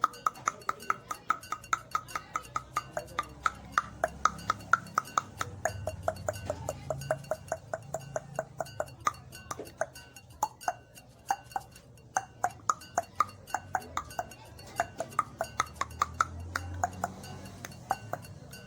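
A rapid train of tongue clicks, about five a second. Their pitch shifts up and down as the mouth changes shape.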